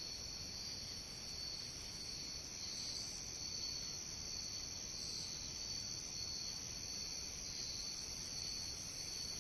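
Crickets chirping in a steady, high-pitched night chorus.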